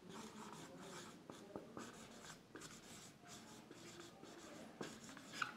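Marker pen writing on a whiteboard: faint, quick scratching strokes as a couple of words are written out, with a brief louder sound near the end.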